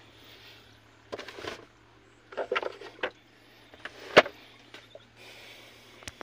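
A scattering of short knocks and clicks from things being handled inside a car cabin, with one sharp, louder knock about four seconds in, over a faint steady low hum.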